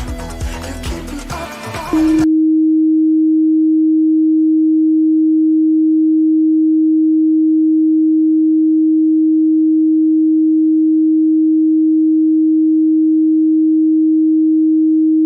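Music cuts off abruptly about two seconds in and is replaced by a loud, steady, single-pitched tone that holds unchanged: an emergency-broadcast attention tone interrupting the programme.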